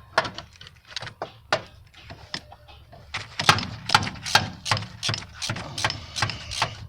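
Ratchet clicking in a series of sharp clicks as it works a spark plug loose from the engine; the clicks are sparse at first, then come about three a second and louder after about three seconds.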